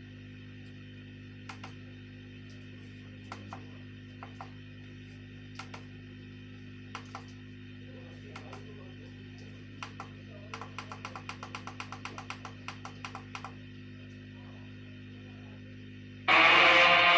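Steady low electrical hum with scattered clicks and a quick run of clicks in the middle; about a second before the end, music with guitar suddenly comes loud out of the LCD TV's speakers, the sign that its sound works again now that the mute transistor has been removed.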